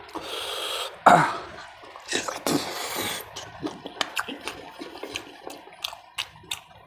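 Wet sucking slurps as marrow is drawn from a mutton nalli (marrow bone), with a short throaty sound about a second in, followed by quick wet chewing and lip-smacking clicks.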